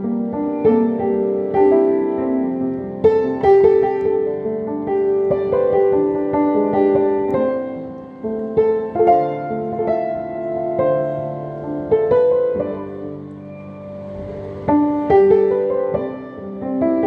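Solo keyboard music played live: a slow melody over held chords, easing off softly about two-thirds through before the playing grows louder again.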